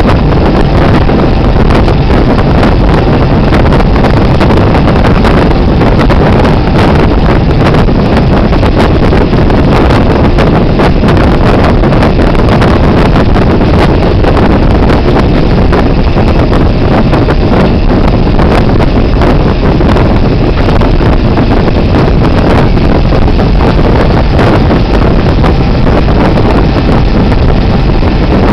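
Loud, steady wind noise buffeting the microphone over the rumble of a moving locomotive running along the track.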